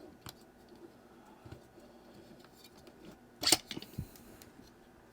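Case-back opener tool working the screw-down steel case back of a G-Shock DW-5000R: light metal clicks and scrapes, with one sharp loud click about three and a half seconds in, followed by a few smaller clicks and a soft knock.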